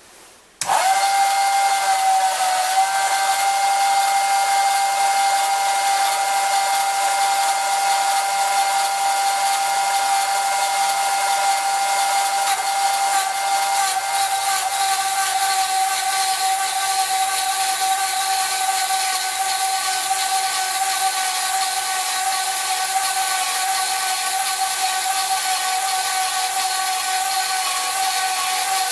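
Small home-built bandsaw starting about half a second in, then running steadily with a high whine over a hiss as its blade cuts a bar of mild steel.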